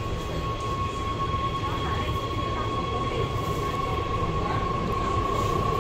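Hohhot Metro Line 1 train running, heard from inside the car: a steady low rumble of the wheels on the track with a thin, steady high whine over it, the whole slowly growing louder.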